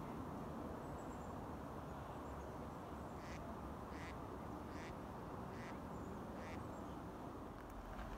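A duck quacking, a series of five short quacks evenly spaced just under a second apart, starting about three seconds in, over a steady low background noise.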